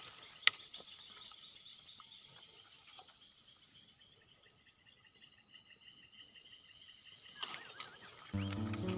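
Night insects, crickets, chirping in a steady pulsing chorus of several high-pitched trills. A single sharp click comes about half a second in, and music comes in near the end.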